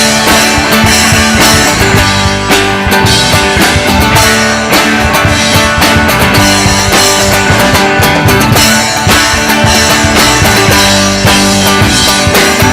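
Live rock band playing an instrumental passage, with electric guitar and a drum kit keeping a steady beat.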